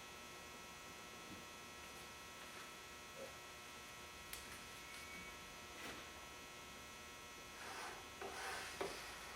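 Quiet, steady electrical hum, with a few faint taps about four and six seconds in and a short rustling, scraping sound near the end.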